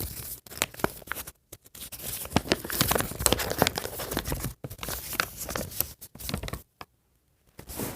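Paper rustling and crinkling as a folded paper checklist is handled and opened, in irregular crackles with short pauses, dropping out briefly near the end.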